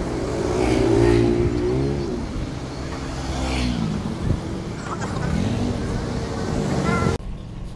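Motor vehicles passing close by on the road. Their engine notes rise and fall in pitch, and the sound cuts off suddenly near the end.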